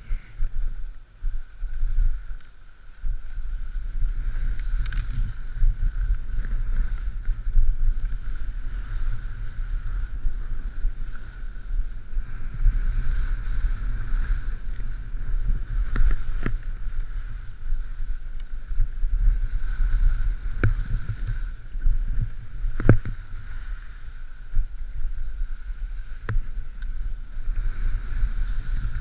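Wind rumbling over an action camera's microphone and skis hissing and scraping over chopped-up packed snow during a downhill run. It settles into a steady rush about three seconds in, with a few sharp knocks as the skis hit bumps.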